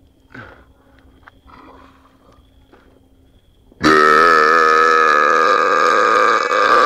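One long, loud burp, starting about four seconds in and held for about three seconds at a steady, slightly wavering pitch.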